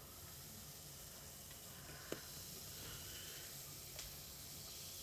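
Quiet room tone with a faint steady hiss, broken by two light clicks about two and four seconds in, such as small plastic containers being handled.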